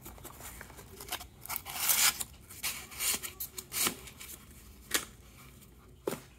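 Rubbing and scraping of foam and cardboard packing being handled, loudest about two seconds in, with several sharp clicks and knocks of small hard objects.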